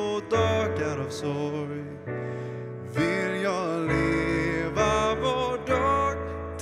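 Worship band playing a Swedish praise song: several voices singing together over piano, electric guitar and cajón.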